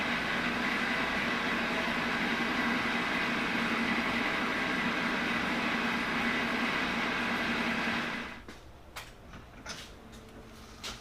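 A shop machine's electric motor running steadily with a hum and a higher whine, switched off about eight seconds in, leaving a few faint clicks.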